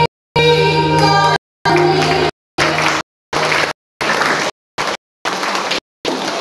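Music with singing, holding a chord for about two and a half seconds before giving way to a noisier, rushing sound. The audio repeatedly cuts out to dead silence for a fraction of a second, about every half second to second.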